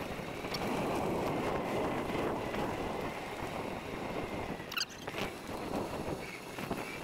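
Steady rushing noise of a bicycle ride: wind on the microphone and tyres rolling on pavement, with a sharp tick a little under five seconds in.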